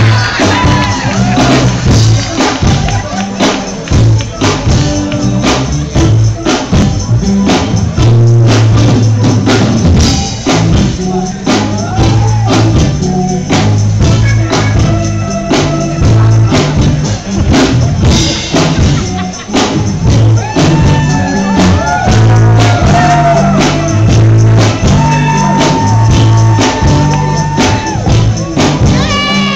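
Loud upbeat music with a steady repeating bass line and busy rhythmic percussion; a singing voice holds long wavering notes, most strongly in the second half.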